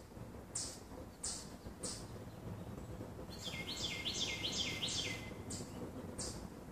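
Birds chirping outdoors: a short high chirp repeats about every two-thirds of a second, and a quick run of about six downward-slurred notes comes in the middle, over a low steady background noise.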